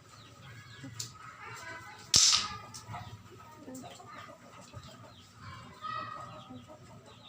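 Short animal calls, with one sharp, loud crack or slap about two seconds in.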